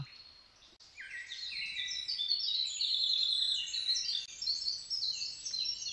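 A chorus of many birds chirping, starting about a second in, with short high calls overlapping one another.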